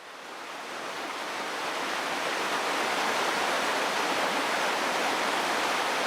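Steady rush of a mountain stream's flowing water, fading in over the first couple of seconds and then holding even.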